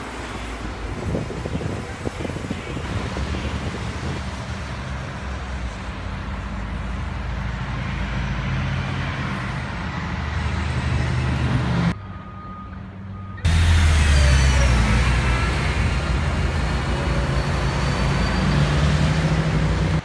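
City street traffic with the low, steady rumble of a heavy vehicle's engine. The sound drops away briefly about twelve seconds in, then comes back louder.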